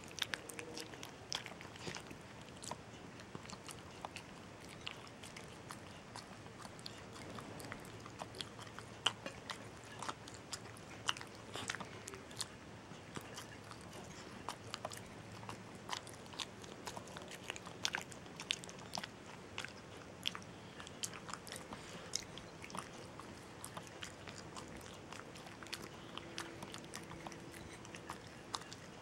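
Small dog licking and chewing peanut butter from a ceramic bowl: irregular, quick wet smacks and clicks of the tongue and jaws.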